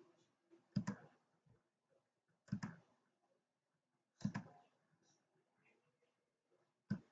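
Computer mouse clicking, four sharp clicks about two seconds apart, each a quick double tick.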